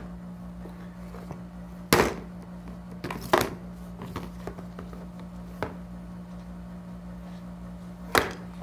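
Hard plastic pieces of a Fisher-Price stacking-ring toy, its pole and base, knocking against a high chair's plastic tray: sharp knocks about two seconds in, twice around three seconds and once near the end. A steady low hum runs underneath.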